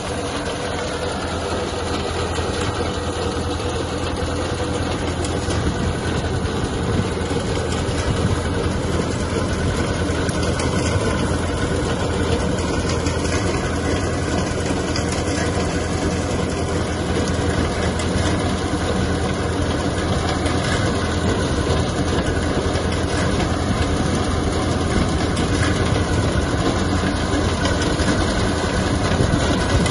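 Mahindra 475 DI tractor's diesel engine running steadily under load, mixed with the steady rattle of a front-mounted reaper binder cutting wheat and tying it into bundles.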